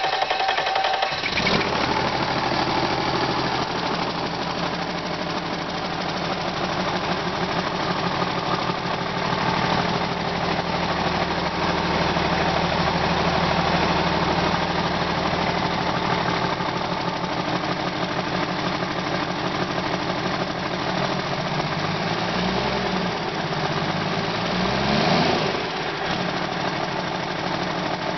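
2006 Cummins ISL EGR 8.9-litre inline-six diesel cranked on its starter, catching about a second in and settling into a steady idle. Near the end it is briefly revved, the pitch rising and dropping back to idle. The seller describes it as a good-running used engine.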